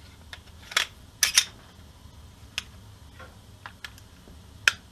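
Sharp irregular clicks and clacks of a Glock 17 pistol being handled and reassembled, its slide and frame knocking and snapping together, about nine in all, the loudest a double click about a second and a quarter in and another near the end.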